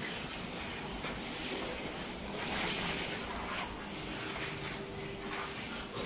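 Steady rushing background noise with a faint steady hum underneath.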